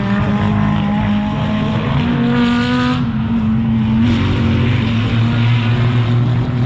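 GT race car engines running at speed as several cars pass on the circuit, their engine notes overlapping. A higher, sharper engine note joins about two seconds in and cuts off suddenly about a second later.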